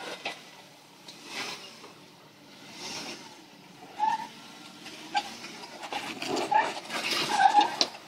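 Jeep Wrangler Rubicon crawling slowly over sandstone slickrock, its engine running low under a few swells of noise. Several short squeaks come through, mostly in the second half, as the tyres grip and scrub on the rock.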